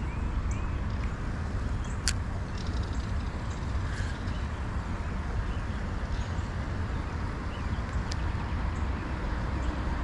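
Steady low outdoor rumble, with faint short bird chirps and two sharp clicks, one about two seconds in and one about eight seconds in.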